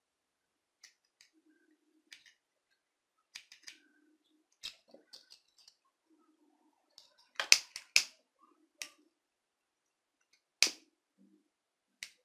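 Soft handling rustles and small clicks, then a few sharp clicks from a pocket lighter being struck: a quick pair past the middle and a single one later.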